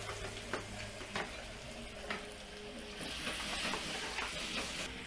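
Shallots, chillies and tomato sizzling in hot oil in a pan while being stirred, with a spatula clicking and scraping against the pan a few times. The sizzle gets louder about three seconds in.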